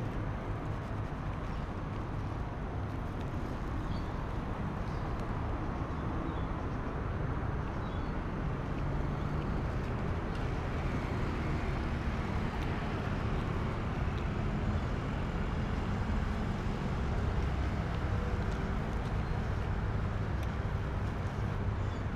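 Steady road-traffic noise: a continuous low rumble of passing vehicles, swelling slightly in the second half.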